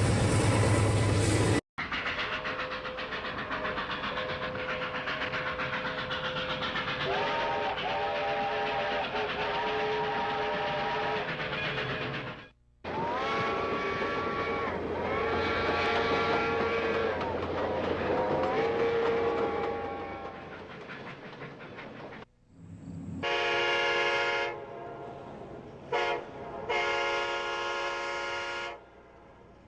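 A string of train sound clips joined by abrupt cuts: a train running with its whistle sounding chords that slide in pitch, and a second clip of the same. It ends with separate whistle blasts, one long, one very short and one long.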